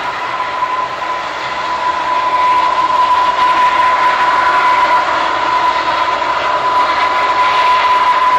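Four Allison T56 turboprop engines of a Lockheed EP-3 Orion running as it taxis: a steady, loud whine with one strong tone over a rushing propeller noise, swelling slightly after about two seconds.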